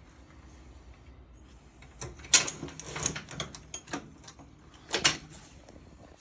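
Metal hand tools clinking and clattering: sharp knocks and rattles of sockets and spanners being handled, in a cluster about two to three and a half seconds in and again near five seconds.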